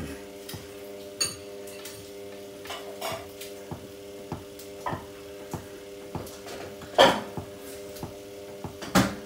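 Samsung front-loading washing machine tumbling a load of clothes: a steady motor hum under irregular clanks and knocks in the drum, with two loud knocks about seven and nine seconds in.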